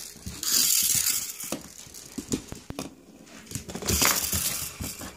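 Rustling and rubbing right against a phone's microphone, in two bursts about a second long with a few light knocks between them.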